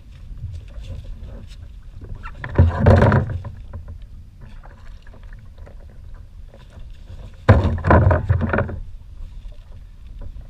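Steady low rumble of wind on the microphone and water around a sit-on-top kayak, broken by two loud bursts of buffeting noise, about three seconds in and again at seven and a half seconds, the second starting abruptly.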